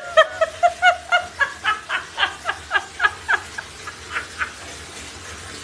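Rapid, high-pitched laughter: a quick run of short, squeaky notes, about three to four a second, that thin out and fade near the end.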